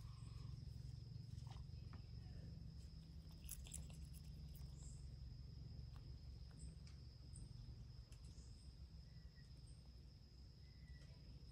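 Faint night ambience: a steady high-pitched insect chorus, with a few soft scattered clicks from a fennec fox eating out of a steel bowl.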